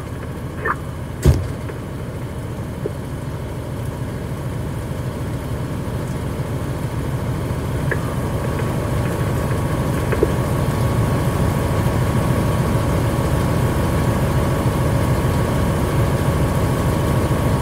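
Fire engine's diesel engine running steadily while it drives its pump, growing slowly louder, with a faint steady whine joining about halfway through. A single sharp knock comes about a second in.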